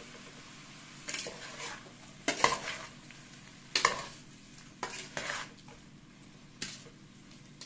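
A metal spoon stirring shell-on shrimp in an aluminium pot, scraping and clattering against the pot's side in about five short bursts. The loudest bursts come a little over two and nearly four seconds in.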